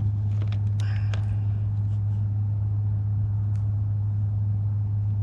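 A steady low hum, with a few faint clicks about a second in.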